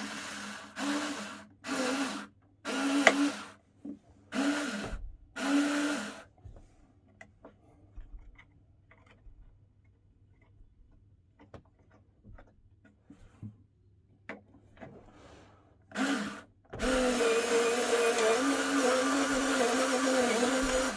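Power drill run in six short bursts in quick succession, then, after some light clicking, a short burst and one steady run of about four seconds near the end, as it drills into the smoke alarm mounting.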